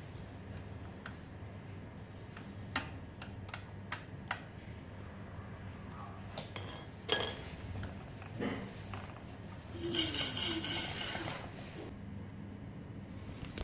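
Metal clinks and taps from hand work on an electric scooter's disc brake, over a steady low hum. About ten seconds in comes a louder scraping rub lasting a second or two.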